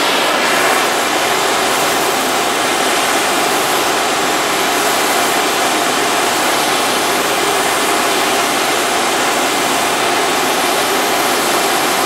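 Gas torch flame hissing steadily as it is played on a steel bar to heat it.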